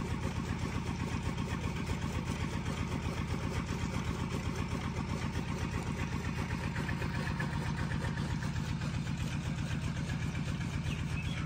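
An engine running steadily at a constant speed, a low sound with a fast, even pulse.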